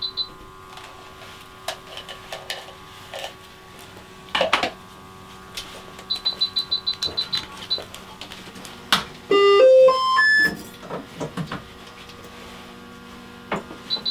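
Electronic beeping from operating-room equipment: a quick burst of about a dozen high beeps in a second comes twice, about seven seconds apart. About nine seconds in, a short run of electronic tones steps upward in pitch alongside a loud hiss. There is a brief clatter of metal instruments about four seconds in.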